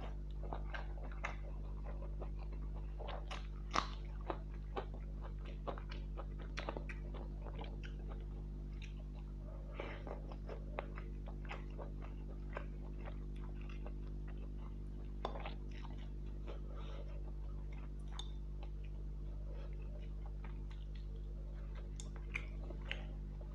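Close-miked chewing and mouth sounds of a person eating rice and fish curry: irregular small smacks and clicks, over a steady low hum.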